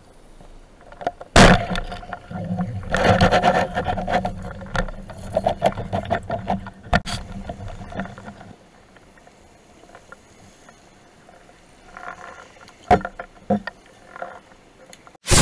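Underwater speargun firing with a single sharp crack about a second and a half in, followed by several seconds of rattling, churning noise as the speared fish struggles on the shaft. A few faint clicks come later, and a loud boom starts right at the end.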